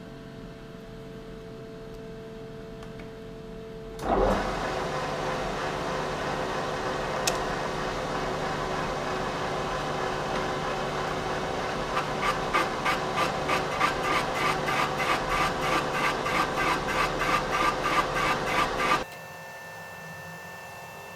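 Machine tool taking the final cut through the crankshaft oil seal bore of a Jaguar 3.8 engine. It starts with a loud jolt about four seconds in and runs steadily with a scraping cutting noise, then a rhythmic ticking of about three a second joins about halfway. It cuts off suddenly near the end, leaving a low hum.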